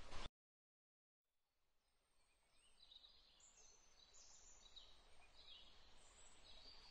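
Faint forest ambience with scattered short, high bird chirps, coming in after about a second of dead silence near the start.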